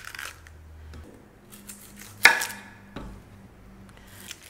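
A kitchen knife cutting an onion on a wooden cutting board: a few separate knocks of the blade on the board, the loudest a sharp one a little past two seconds in, with a short ring after it.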